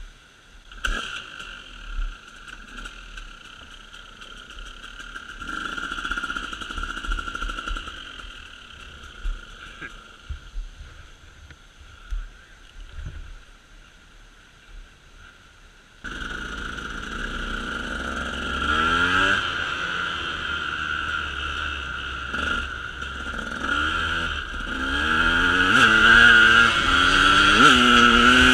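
A motor vehicle's engine running and being revved, its pitch repeatedly rising and falling. It is faint for the first half, comes in much louder about halfway through and builds toward the end, over a steady high-pitched drone.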